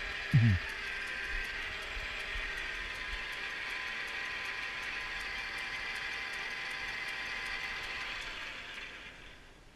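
South Bend 9 inch lathe running fast on its flat belt drive: a steady mechanical whir with a faint, evenly repeating tick. Near the end it winds down and fades away.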